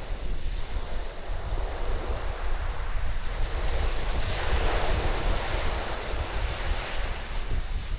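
Surf washing onto a sandy beach, with strong wind buffeting the microphone in a constant low rumble. The wash swells louder about halfway through, then eases.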